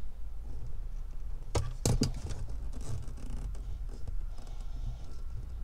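Hands handling plastic air hoses and their fittings at a truck seat base: rubbing and scraping, with two or three sharp clicks about one and a half to two seconds in, over a steady low rumble.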